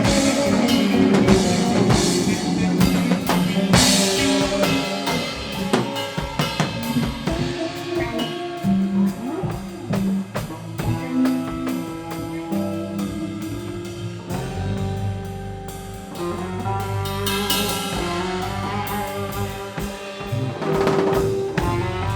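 Live rock band playing an instrumental passage with no vocals: drum kit with snare and bass drum under electric guitars and bass guitar. A heavier bass line comes in about two thirds of the way through.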